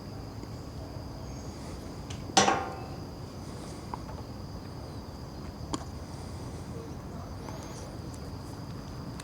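Mouth suction drawn on a silicone siphon tube to start siphoning fuel out of a motorcycle tank: one brief sucking sound about two seconds in, then small clicks, over a faint steady high whine.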